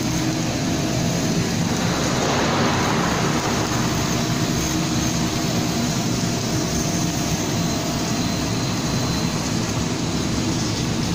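Polyethylene foam sheet extrusion line running: a steady machine hum and whir with a few constant tones, swelling briefly about two seconds in.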